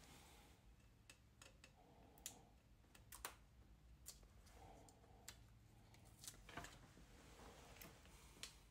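Faint, irregular small clicks and light rubbing as a plastic squeegee and fingertips press a sticker onto a metal oil filter canister.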